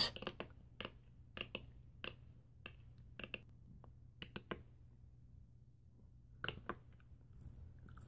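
A beatboxer's mouth clicks and pops imitating bones cracking: a faint, irregular series of sharp clicks, with a pause of about a second past the middle before a few more.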